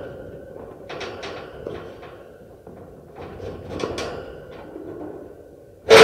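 Metal cage knocked and rattled: scattered light metallic clanks about a second in, then a cluster of rattling knocks around three to four seconds in, with the metal ringing on between them. A much louder hard clank comes right at the end.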